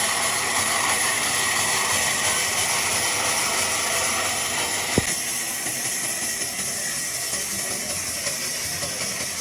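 Sawmill machinery running with a steady hissing noise and a faint steady whine. A sharp click about five seconds in, after which the highest hiss drops away.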